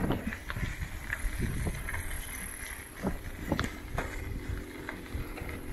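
Bicycle rolling over a rough surface: a steady low rumble from the tyres and wind on the microphone, with scattered knocks and rattles from the bike, the sharpest right at the start.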